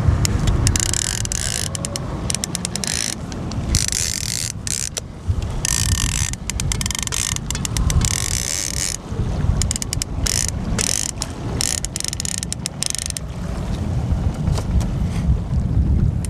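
Fishing reel ratcheting in irregular spells while a big sturgeon is fought on the line, over a steady low rumble of wind and water.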